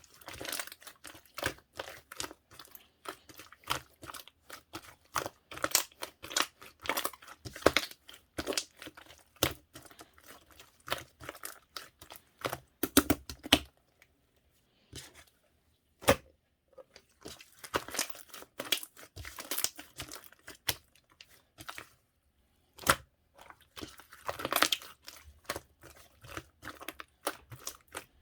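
Slime being squeezed, stretched and folded by hand, giving rapid sticky crackles, pops and tearing sounds, with two brief pauses.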